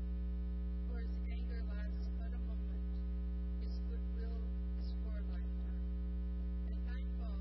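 Steady electrical mains hum, a low buzz with several overtones, unchanging throughout, with a few faint indistinct sounds over it.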